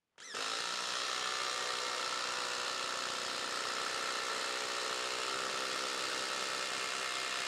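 DeWalt DCF845 cordless impact driver running steadily under load, hammering an 8-inch TimberLOK structural screw down into a wooden post. It starts a moment in and holds an even, unbroken pitch throughout.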